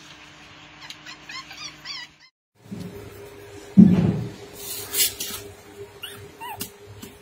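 Young puppies giving short, high whines and squeaks, broken by a brief silent gap about two seconds in, with a single louder low sound about a second and a half later.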